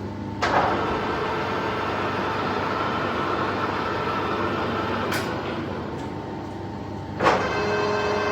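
Colchester Triumph 2000 lathe's geared headstock running, a steady mechanical whine of gears over motor noise. A sharp clunk comes about half a second in and another near the end, and after each one the pitch of the whine changes.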